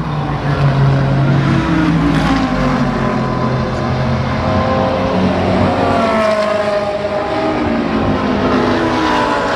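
GT race cars' engines passing on the circuit, one after another. A low steady engine note early on gives way, from about halfway, to higher engine notes that sweep down and up as the cars brake and accelerate.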